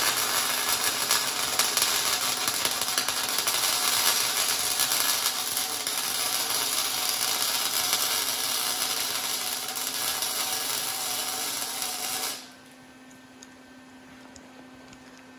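Arc welding on steel: a steady crackling hiss from the welding arc that cuts off suddenly about twelve seconds in, leaving only a faint low hum.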